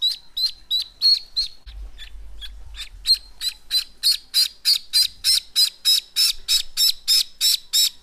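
Indian Runner duckling peeping, short high calls repeated about three times a second while it is held on its back for vent sexing. The calls break off briefly about two seconds in, then come back louder and keep a steady pace.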